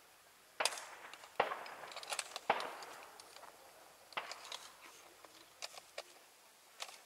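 Several sharp cracks spread irregularly over a few seconds, some with a short echoing tail: rifle shots fired on the range.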